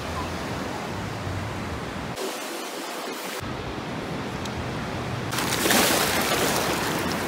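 Ocean surf washing on a sandy beach, a steady rush. About five seconds in it grows louder and brighter as shallow waves wash around the feet.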